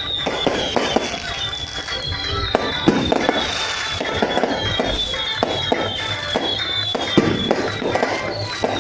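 Fireworks going off: many sharp bangs and crackles at irregular intervals, with music playing throughout.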